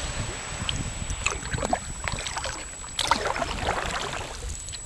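Kayak on the water: paddle strokes splashing and dripping, with small clicks and trickles of water against the hull, over a low rumble.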